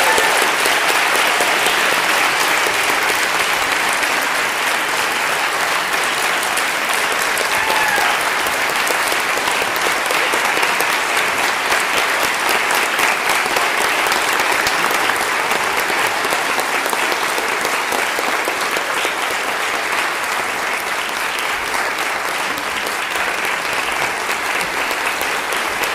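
Audience applauding steadily, a dense wash of many people's hand claps.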